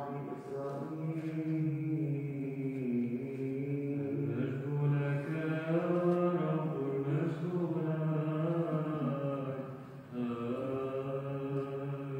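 A man's voice in Byzantine chant, drawn out in long held notes that slowly rise and fall, with a short break about ten seconds in.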